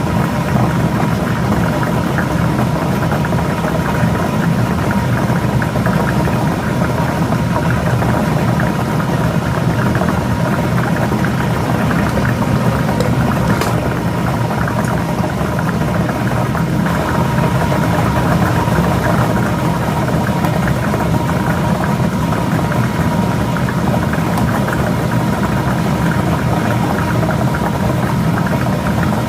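Lottery ball drawing machine running steadily, its blower motor whirring without a break.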